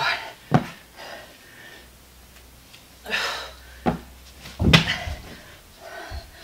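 Thuds against the floor during dumbbell manmaker reps: three sharp knocks, about half a second in, near four seconds and the loudest just before five seconds, with hard breaths in between.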